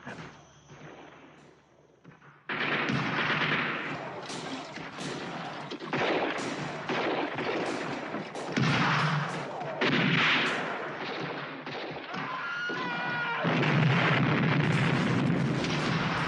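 Quiet for about two and a half seconds, then heavy gunfire breaks out suddenly: dense, overlapping volleys of many guns firing at once in a battle, going on without a break. A brief wavering cry rises through it about three-quarters of the way in.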